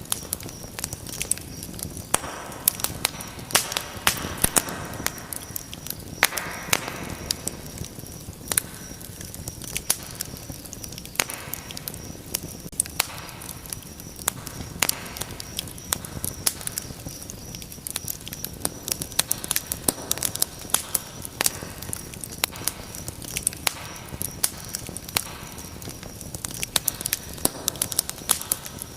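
Wood fire burning in a fireplace, crackling with frequent irregular sharp pops over a steady rush of flame noise.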